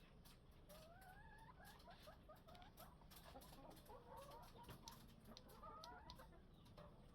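Faint chicken clucking, in short runs of quick squeaky notes, with scattered light clicks.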